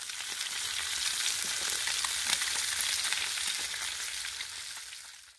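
Fish fillets sizzling in a nonstick frying pan on a portable camp stove: a steady frying hiss with scattered small crackles and pops, fading in at the start and dying away just before the end.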